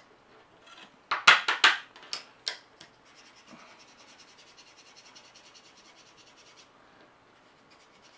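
Small flexible sanding file rubbed back and forth over dried filler putty on a plastic model part: a handful of loud, scratchy strokes about a second in, then lighter, fainter rubbing that dies away near the end.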